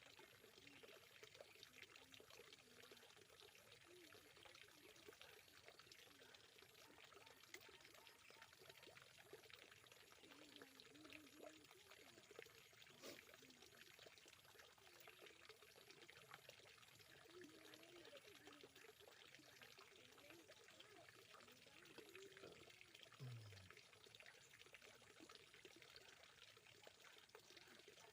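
Faint, steady sound of water pouring and trickling into a fish pond.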